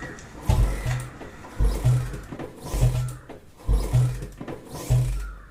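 Royal Enfield single-cylinder engine being kicked over again and again, five strokes about a second apart, without catching. The rider puts it down to an empty petrol tank on a bike left unstarted for about a month and a half.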